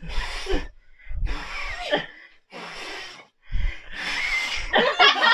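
Four hard puffs of breath from a person blowing at a candle flame through a nylon stocking pulled over the face. Each blow hits the microphone with a low rumble, and the last and longest comes near the end.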